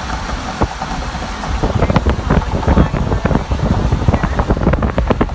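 Wind buffeting the microphone in a moving car, over a low road rumble, with irregular crackling gusts that thicken from about a second and a half in.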